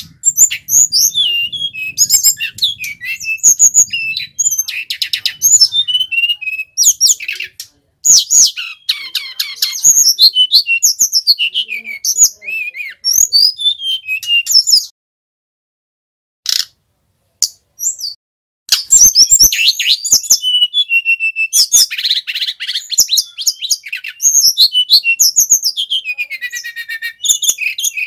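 Male brown-chested jungle flycatcher singing: fast runs of varied high, quick-changing notes, broken by a pause of a few seconds past the middle before the song starts again.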